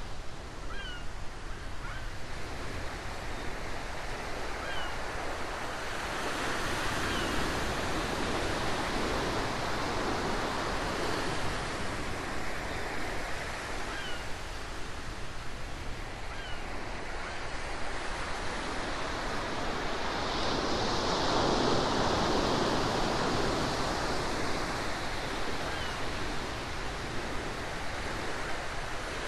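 Ocean waves washing on a shore: a steady surf hiss that swells up twice, about a quarter and about two-thirds of the way through, with a few faint short high chirps scattered through it.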